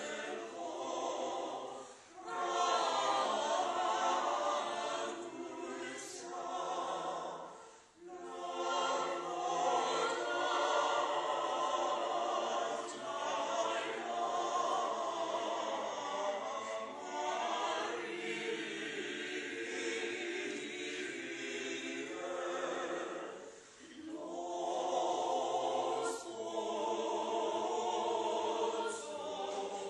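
Small mixed choir of men's and women's voices singing in harmony, in long held phrases with short breaks about two, eight and twenty-three seconds in.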